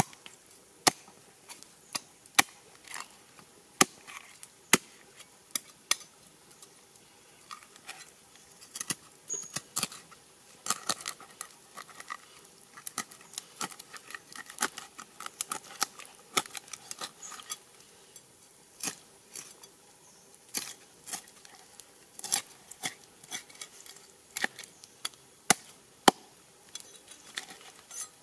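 Broad-bladed knife cutting open a whole fish on a wooden chopping board: sharp, irregular clicks and taps of the blade on the board and fish. The taps are sparse at first, then come thick and fast with scraping from about eight seconds in.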